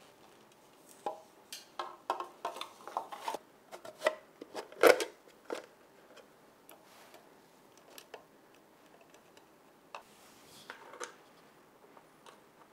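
Hands handling a perforated metal-cased power converter and fitting a 3D-printed plastic enclosure over it: a run of light plastic-and-metal clicks and knocks, the loudest knock a little under five seconds in. A few faint clicks follow near the end as a knob is fitted onto the box's control shaft.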